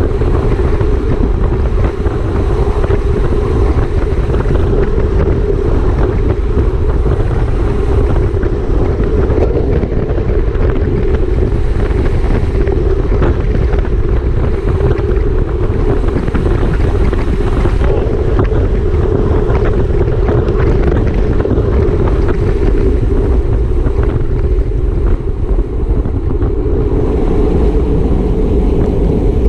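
Wind rushing over the microphone of a racing cyclist's camera at race speed: loud, steady wind noise.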